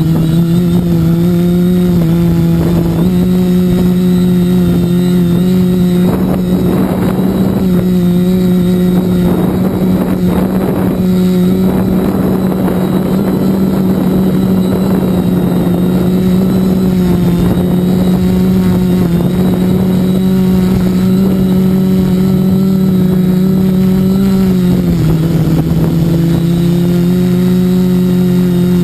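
Multirotor drone's electric motors and propellers humming steadily, heard from the camera on board. The pitch shifts slightly a few seconds in and dips briefly about 25 seconds in as the throttle changes, and a rougher rushing noise joins between about six and thirteen seconds in.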